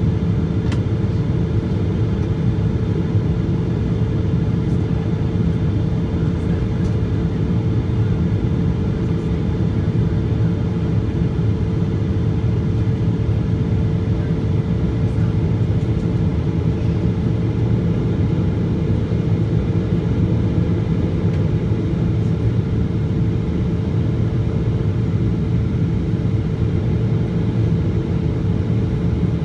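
Cabin noise of a Boeing 777-200ER heard from a window seat beside its GE90 engine on approach: a steady low drone of engines and airflow with a constant hum.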